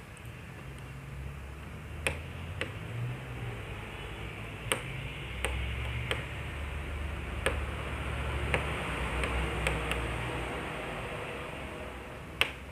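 Scattered small clicks and ticks, about ten over the stretch, as a small PCB potentiometer is handled and worked by hand during cleaning, over a steady background hiss and low hum.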